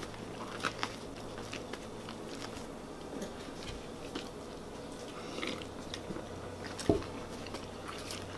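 A person chewing a mouthful of chicken parm sub, with small wet mouth clicks and faint crunches. A single dull knock sounds near the end.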